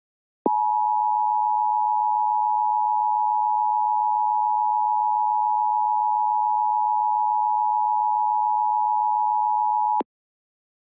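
Emergency Alert System attention signal: a steady two-tone alert (853 and 960 Hz sine tones sounded together) held for about nine and a half seconds, then cut off abruptly. It is the signal that announces an emergency warning message.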